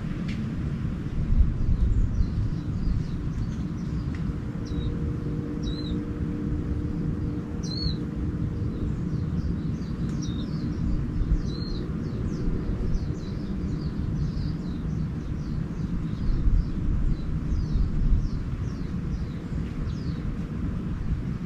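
Small birds chirping: short hooked notes every couple of seconds, then quicker, fainter twittering in the second half. Underneath runs a steady low rumble, with a faint steady hum that comes in about four seconds in.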